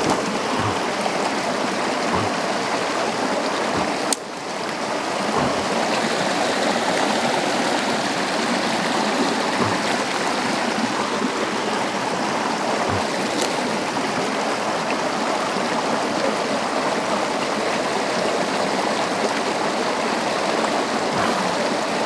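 Creek water rushing steadily. A sharp click about four seconds in and a fainter one later cut through it.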